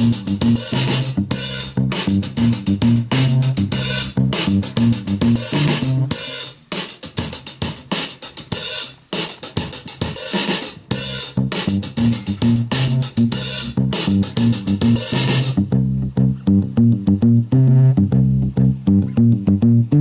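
Music with a drum-machine beat, hi-hats and a repeating bassline. About three-quarters of the way through, the drums and cymbals drop out, leaving the bass notes.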